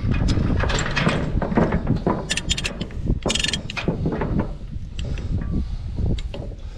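Tie-down chain rattling and clanking against metal as a tractor is chained down for hauling: a run of irregular clicks and knocks with a brief rattling clatter about halfway through, over a low rumble.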